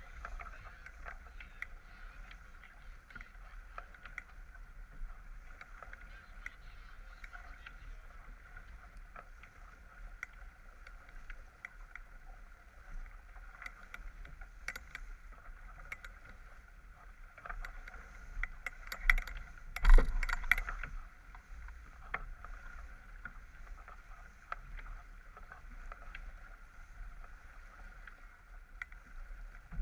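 Water rushing and hissing along the hull of a J24 sailboat heeled and sailing fast, with wind rumbling on the microphone and small knocks and ticks from the boat. About two-thirds of the way through, a brief loud thump stands out.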